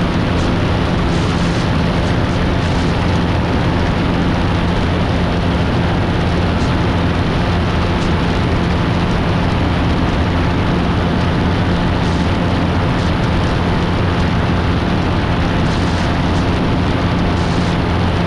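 Steady drone of a Grumman Tiger's four-cylinder Lycoming engine and propeller in cruise flight, with a constant low hum under heavy wind rush on an under-wing GoPro.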